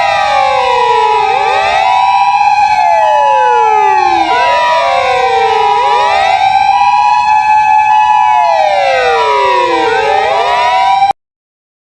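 Several emergency-vehicle sirens sounding together: wailing sirens sweeping up and down about every four seconds over a two-tone siren alternating between two steady pitches. All of them cut off abruptly about eleven seconds in.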